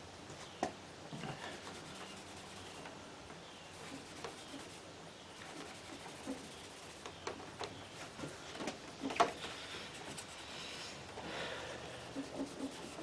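Damp magic eraser scrubbing the plastic case of a CRT monitor: soft rubbing with scattered light knocks and clicks.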